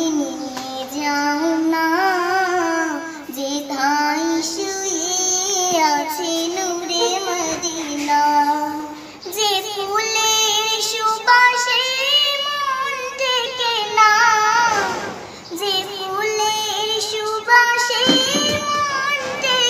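A young girl singing a Bengali Islamic song (gojol) solo, in long held notes that waver and bend, phrase after phrase with brief pauses for breath.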